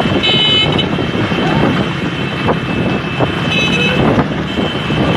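Motor vehicles running at speed beside a galloping horse cart, with dense engine and road noise. Several short blasts of a vehicle horn cut in over it: one near the start, one a little past the middle and one near the end.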